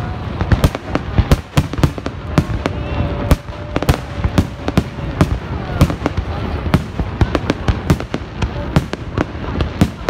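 Aerial fireworks display at full intensity: a rapid, irregular barrage of shell bursts and crackling bangs, several a second, without a break.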